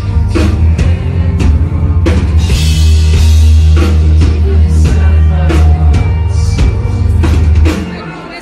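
Live rock band playing loud, recorded from the crowd on a phone: heavy bass, drum kit hits and a singer's vocals. The music falls away near the end.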